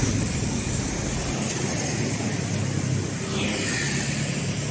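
Steady street ambience of motorbike and car traffic running along a beachfront road.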